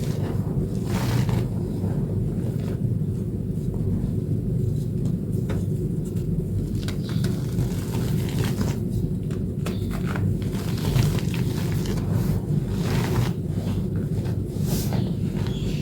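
Reformed blue chalk made with corn starch paste being crushed and crumbled, giving scattered short crunches over a steady low rumble.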